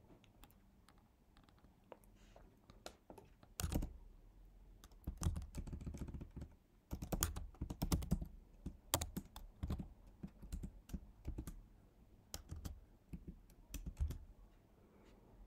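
Typing on a computer keyboard: a few scattered keystrokes at first, then irregular runs of key clicks from about four seconds in until shortly before the end.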